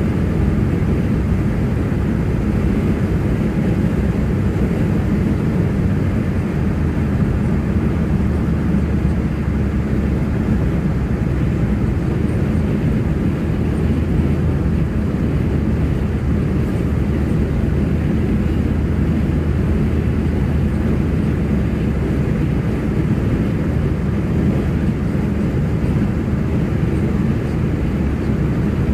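Steady low rumble of a car being driven, heard inside the cabin: tyre and engine noise with no break or change.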